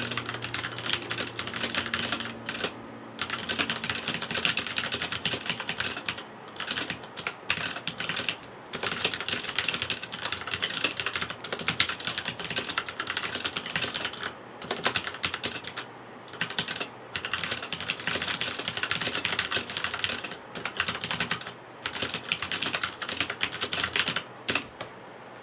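Fast, continuous typing on a Leopold tenkeyless mechanical keyboard with Cherry MX Red switches: dense key clacks in runs with brief pauses between them, stopping shortly before the end.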